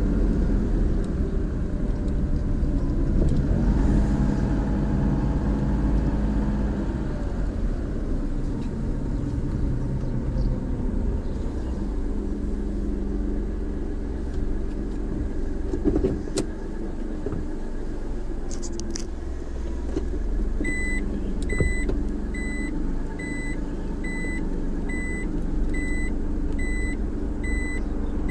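Car cabin noise while driving slowly: a steady low engine and tyre rumble with a few small clicks. About three-quarters of the way through, an electronic beep starts repeating evenly, about one and a half beeps a second.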